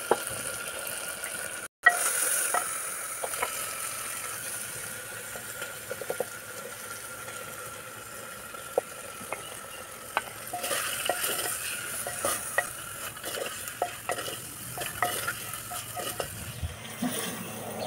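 Cauliflower and spices sizzling in masala in a clay pot while a spatula stirs, scraping and knocking against the earthenware in many short clicks. The sizzle grows louder about halfway through.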